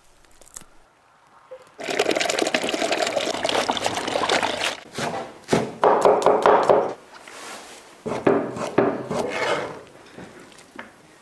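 Food-preparation sounds: a rushing, water-like noise for a few seconds, then a cleaver chopping garlic on a wooden board, several sharp knocks about halfway through.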